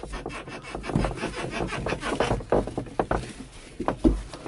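Irregular clicks, knocks and rubbing scrapes of things being handled in a glider cockpit, several a second, with a louder knock about four seconds in.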